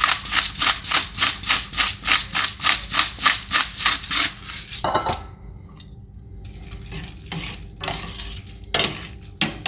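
A pepper mill grinding black pepper: a fast, even run of grinding strokes, about four to five a second, that stops about five seconds in. Then metal tongs toss spaghetti in a stainless steel skillet, with scattered clinks and scrapes, the two loudest near the end.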